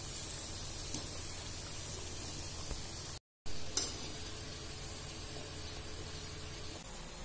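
Bhakarwadi rolls deep-frying in hot oil in a kadhai over low-medium heat, a steady sizzle. A wire skimmer stirring through them gives a few sharp clicks against the pan, the loudest just before four seconds in. The sound cuts out for a moment a little after three seconds.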